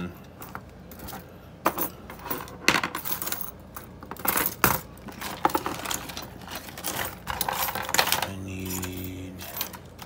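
Metal lock picks, tension wrenches and padlocks clinking and clattering against each other on a wooden bench as they are rummaged through: a string of sharp, irregular metallic clinks.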